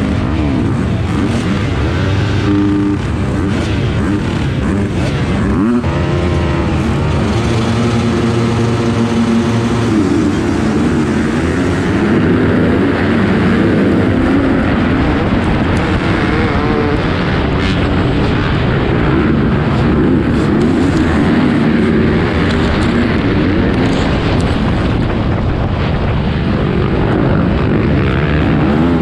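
Motocross dirt bike engines at race throttle, heard close up from the rider's own bike, rising and falling in pitch through gear changes. Several other bikes run close by in the pack.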